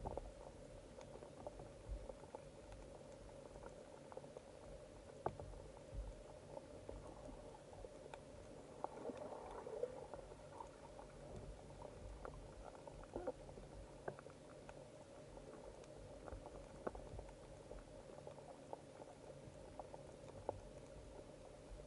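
Faint underwater ambience heard through a submerged camera: scattered crackling clicks over a steady low hum.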